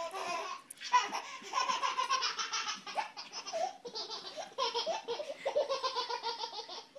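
A baby belly-laughing in a string of quick, high-pitched bursts, with short breaks between them.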